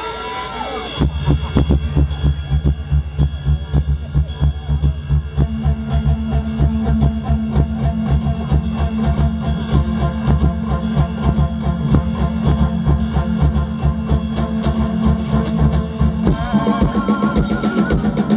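Mor lam band music: a steady, driving drum-kit beat with heavy bass kicks in about a second in. Near the end the beat eases and a wavering melody line comes to the front.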